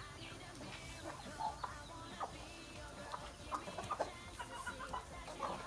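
A flock of chickens clucking while they eat scattered feed, with many short scattered calls.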